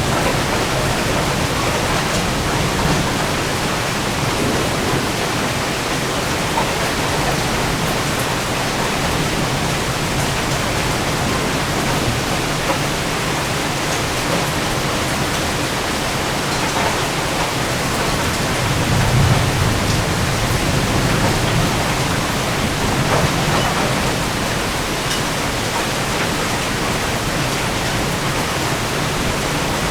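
Rain pouring steadily in a severe thunderstorm, with a low rumble of thunder swelling briefly about two-thirds of the way through.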